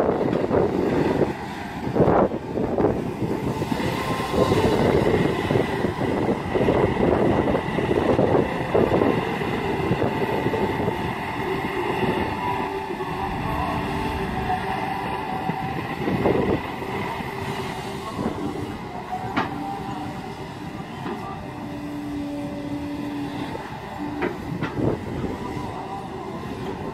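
Kobelco SK210LC-10 long-reach excavator working: its diesel engine running under load with a steady whine, and sharp knocks here and there as the bucket digs and moves soil.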